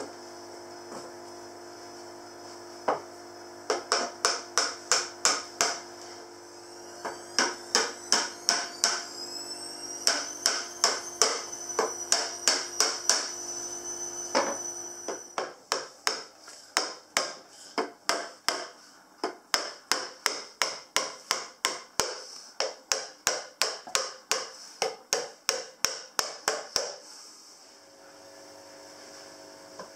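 Hammer tapping on a flat-pack pine and MDF drawer, driving its fixings in, in quick runs of about four or five strikes a second with short pauses between runs.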